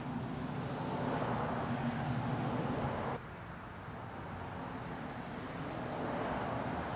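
Steady outdoor background rush with a faint low hum, opening with a sharp click. The noise drops abruptly about three seconds in and then slowly builds again.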